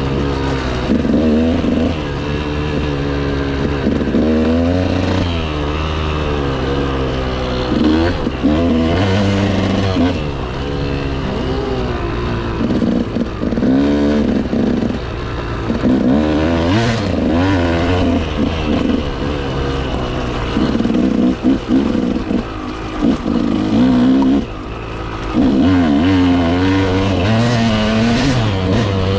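KTM motorcycle engine pulling along a dirt forest road, its pitch repeatedly rising and falling as the throttle opens and closes through the gears, with a short easing-off about three-quarters of the way through.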